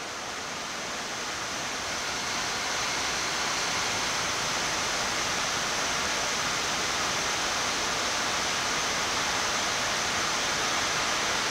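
Steady rush of air on a Boeing 787-9 flight deck in the climb after takeoff, swelling slightly over the first few seconds and then holding even.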